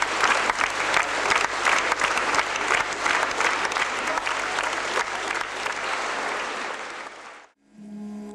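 Theatre audience applauding a ballet curtain call: dense, steady clapping that fades out suddenly near the end, giving way to the first notes of music.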